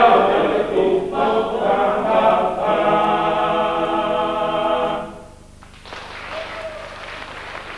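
A choir singing a cappella, holding a final chord that breaks off about five seconds in. After a short gap an audience starts applauding.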